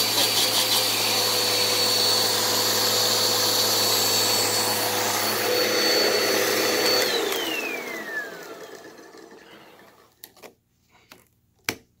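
Hoover upright vacuum cleaner running with a steady motor whine, then switched off about seven seconds in, the whine falling in pitch and fading as the motor spins down. A few sharp clicks follow near the end.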